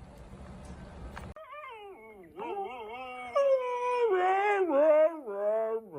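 A dog howling in long, wavering notes that rise and fall in pitch, starting about a second and a half in.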